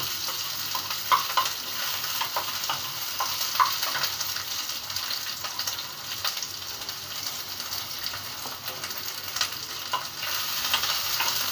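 Chopped onions sizzling in a little hot oil in a kadhai, with the spatula scraping and clicking against the pan now and then as they are stirred.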